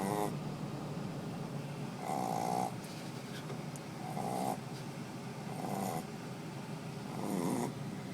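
A Shih Tzu snoring in deep sleep, one snore about every one and a half to two seconds, five in all.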